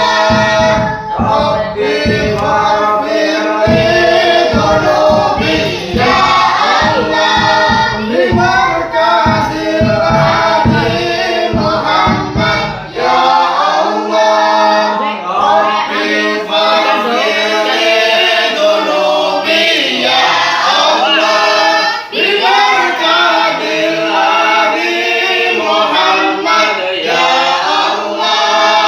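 Group of voices singing sholawat, Islamic devotional songs in praise of the Prophet, with steady percussion beats under the singing. The beats stop about halfway and the voices carry on over a steady low hum.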